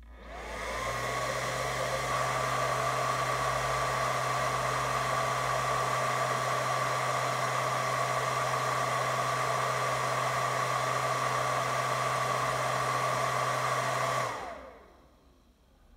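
Spektrum S2200 G2 smart charger's cooling fan running during the charger's self-test. It spins up with a rising whine, runs steadily with a whooshing hum, then winds down with a falling whine near the end.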